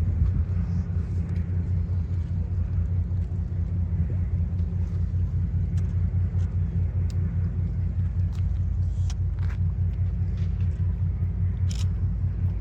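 Lake freighter's engines running, a steady low throbbing rumble.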